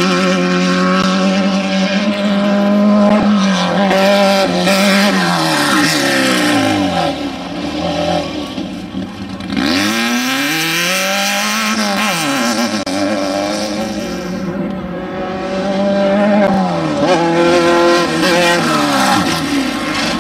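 Off-road desert race vehicles' engines running hard and passing by, the pitch rising and falling; it drops sharply a few times as vehicles go past or lift off the throttle.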